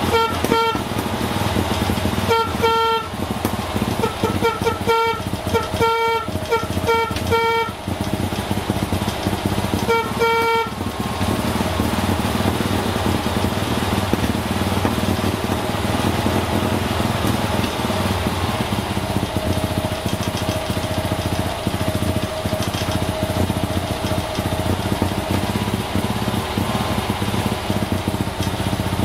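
Toyota Sports 800's air-cooled flat-twin engine idling steadily; the owner puts the now-stable idle down to warming up or to the new spark plugs. For about the first ten seconds, a horn-like tone of one pitch sounds over it in a run of short, irregular toots.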